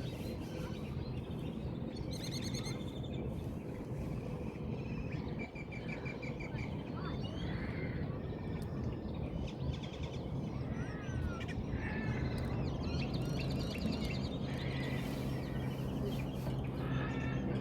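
Several birds chirping and calling, with short chirps, a rapid trill about two and a half seconds in, and gliding calls, over a steady low hum.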